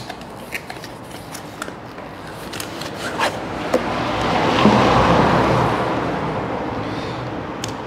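Light clicks and handling of a cardboard box as a motorcycle battery is lifted out of it. Then a rush of noise that swells to its loudest about five seconds in and slowly fades.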